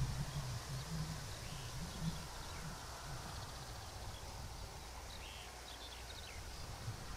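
Birds giving a few faint, scattered short chirps over a steady low rumble and hiss of outdoor background noise.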